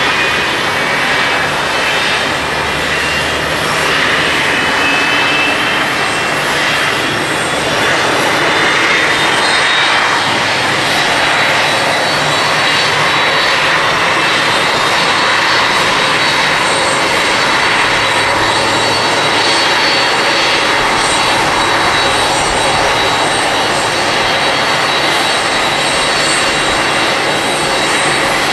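A Boeing 747-400D's four jet engines running, a loud, continuous jet roar with thin high whines laid over it. The whines rise slightly in pitch over the first few seconds.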